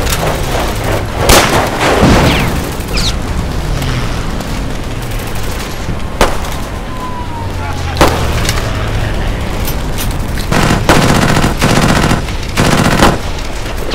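Gunfire sound effects for a staged WW2 battle. There are single loud shots and bangs in the first half, then rapid machine-gun fire in several bursts from a German MG-42 near the end.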